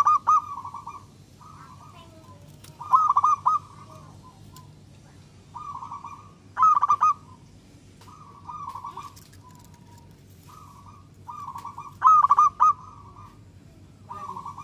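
Zebra dove (perkutut) singing its cooing song: four loud phrases, each a few quick hooked notes running into a softer rolling coo, with quieter coos in between.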